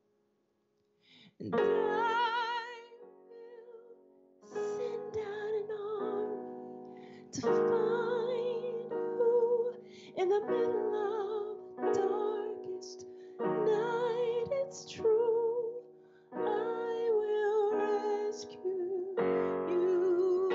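A woman singing with vibrato, accompanying herself on an electric keyboard. She comes in about a second and a half in after a near-silent start, singing phrases of a second or two on held, wavering notes over sustained chords.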